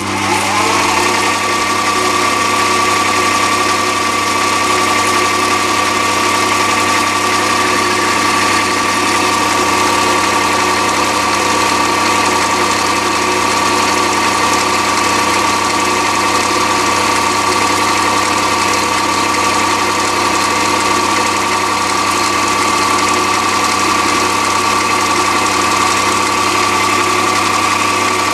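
Mini lathe motor starting up and then running steadily, spinning the chuck, with a steady high whine over a lower hum.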